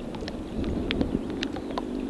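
Calm sea lapping at the shoreline, a steady wash of water with many small irregular splashes and clicks.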